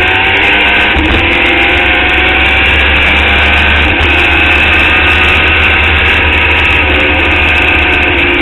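Formula Indy race car engine running hard at a nearly steady pitch as the car goes down a straight, heard from an on-board camera, with a heavy low rumble of wind and road under it.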